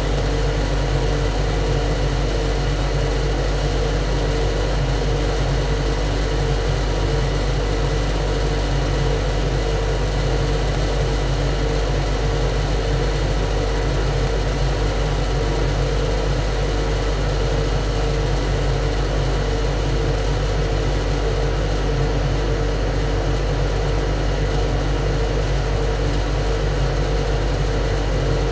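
Ship's engine-room machinery running steadily: a loud, deafening deep drone with constant humming tones over it, unchanging throughout.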